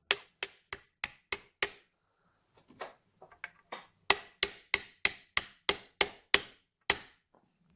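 Light hammer taps driving a split pin into a Martini rifle's action: about six sharp metallic taps at roughly three a second, a pause with a few faint ones, then about nine more at the same pace as the pin is seated.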